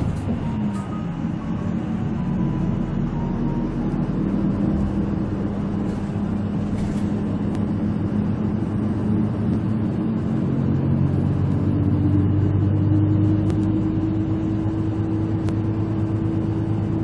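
Route bus heard from inside the cabin while moving: a steady engine hum with road rumble, and the engine note climbing a little about two-thirds of the way through as it pulls away.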